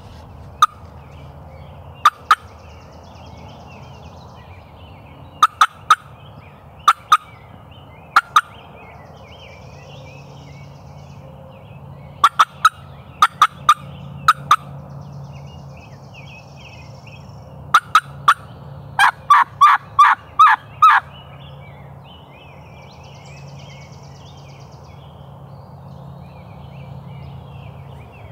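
Hen-turkey sounds from a turkey call: scattered sharp clucks in ones, twos and threes, then a run of about seven loud yelps about twenty seconds in, made to get a gobbler to answer. Small birds chirp faintly in the background over a low steady hum.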